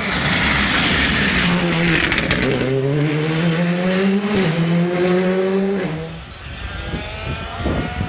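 Rally car engine at full throttle, its pitch climbing and dropping back twice as it shifts up through the gears, with a few sharp pops about two seconds in. The sound drops away about six seconds in, and a fainter, more distant rally engine revs near the end.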